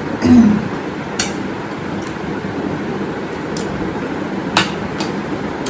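A few sharp light clinks of dishes or utensils over a steady low background noise, with a short vocal sound just after the start.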